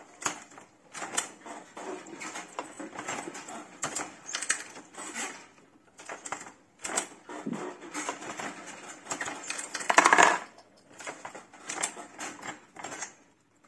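Lee Pro 1000 progressive reloading press being cycled by hand: a run of metallic clicks and clanks from the ram, the indexing shellplate and the bullet feeder, with the loudest clatter about ten seconds in.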